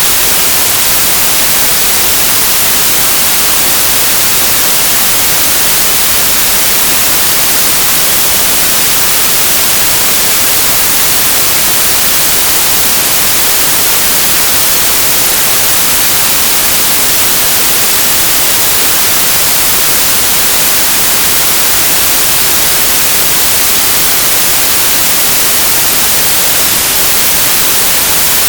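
Synthesised white noise: a steady, even hiss with a bright, treble-heavy sound and no changes.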